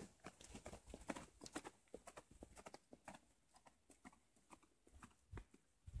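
Faint footsteps on a concrete road: a string of light, irregular taps from a person walking.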